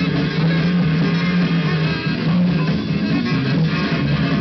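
Loud music playing over a club sound system for a stage dance routine, heard from the audience.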